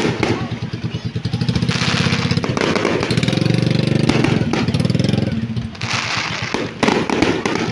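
A nearby vehicle engine running with a fast, even pulse, growing louder about two seconds in and holding for a few seconds before easing off, with crowd noise behind.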